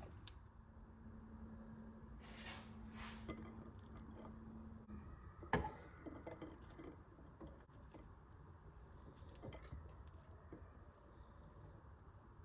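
Soft squishing and scraping of a steel spoon scooping cooked kodo millet pulao out of a pressure cooker onto a plate, with one sharper clink of metal about five and a half seconds in.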